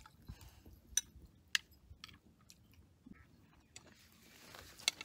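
People eating fried chicken: crunchy chewing, broken by a few sharp clicks of utensils on plates.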